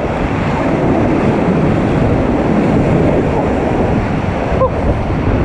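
Whitewater rapids rushing steadily and loudly around a raft, with wind noise on the action-camera microphone.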